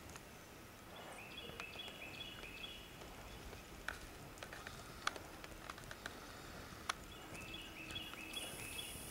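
A small bird singing a short run of high repeated notes, twice, with a few faint sharp clicks in between.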